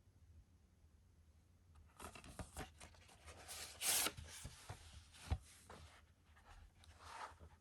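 A DVD case being handled: rustling and light clicks of plastic, a louder scrape about four seconds in, and a single sharp knock a second or so later.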